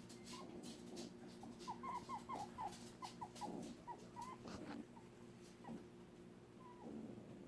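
A pet animal giving a rapid run of short, high squeaks, about ten in under three seconds, with a few more scattered later and some light clicks. The owner says the pet makes these squeaks when it is upset.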